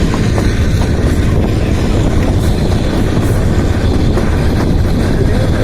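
Kalka–Shimla narrow-gauge toy train running along the track: a steady, loud rumble and rattle of the moving carriage, with a few faint clicks.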